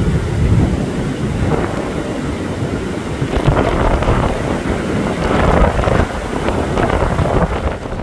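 Blizzard wind buffeting the microphone in heavy, gusting rushes, strongest around the middle.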